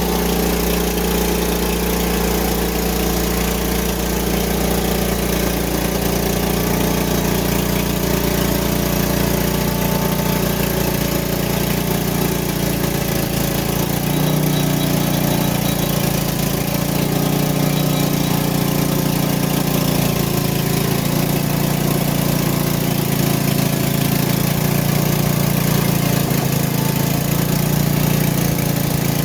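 Small gasoline engine of a Frontier OS23 portable bandsaw mill, about 7 horsepower, running steadily while it drives the band blade. Its note changes about halfway through.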